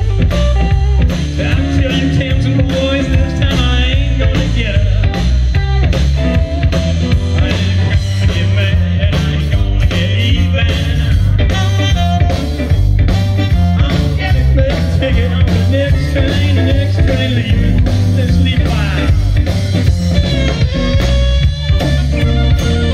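Live blues band playing amplified through a PA: electric guitars, electric bass and drum kit.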